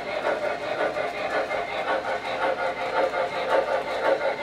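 O-gauge model freight cars rolling along three-rail track, their metal wheels making a steady rolling clatter on the rails.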